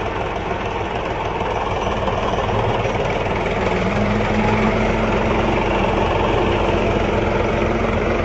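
HMT 4022 tractor's diesel engine running under load as it pulls a disc harrow through the soil. It gets a little louder about four seconds in, with a low steady tone coming up.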